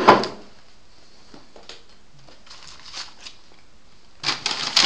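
Paper gift wrapping being handled and crumpled: a few faint rustles and crinkles, then a burst of dense, loud crinkling about four seconds in.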